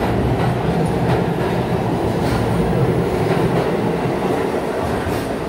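New York City subway train pulling out of an underground station past the platform: a steady rumble of wheels on rail, with a few faint clicks.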